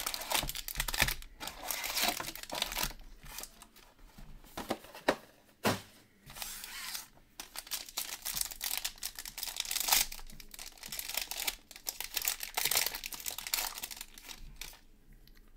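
Trading-card pack wrapper from a 2022 Prizm Football box being torn open and crinkled: irregular rustling with sharp snaps, getting quieter near the end.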